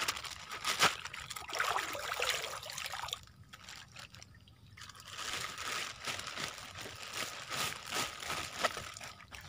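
Water dripping and trickling off a fishing gill net held up over a creek, with a thin plastic bag crinkling on and off as fish are put into it. It goes quieter for a couple of seconds around the middle.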